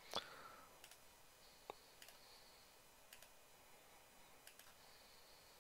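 Near silence: room tone with several faint, scattered clicks of a computer mouse, the clearest just after the start.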